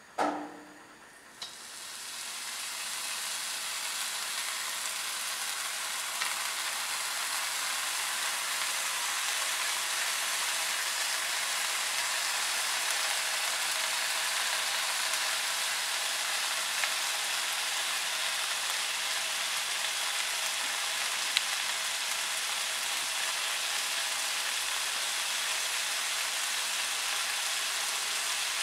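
Three thin slices of raw bacon going into a hot frying pan: a soft slap as they are laid in, then a hissing sizzle that builds over the first few seconds and holds steady as the fat fries, with a few small pops.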